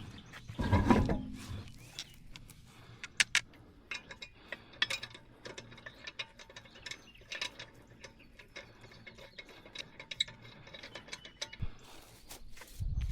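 Irregular light metallic clicks and ticks, typical of lug nuts and a hand ratchet being worked while a wheel is refitted to a truck. A louder clatter comes about a second in and again near the end.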